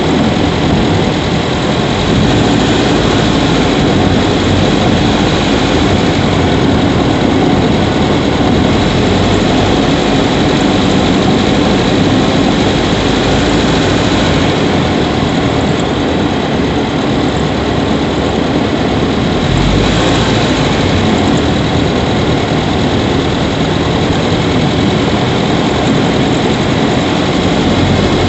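Subaru Levorg 1.6GT-S's 1.6-litre turbocharged flat-four running steadily, heard from inside the engine bay close to the intake.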